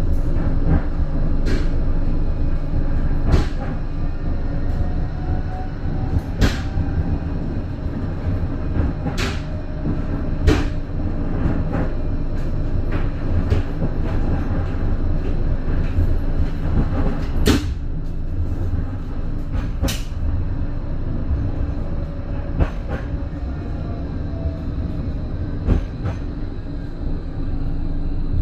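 Blackpool tram running along the seafront track, heard from inside the car: a steady low rumble with a faint steady tone and sharp clicks every couple of seconds.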